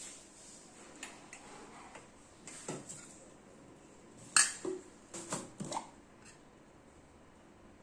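Metal spoon clinking and scraping against a stainless steel bowl of potato filling: a few sharp knocks, the loudest a little past halfway, followed by a quick cluster of smaller clinks.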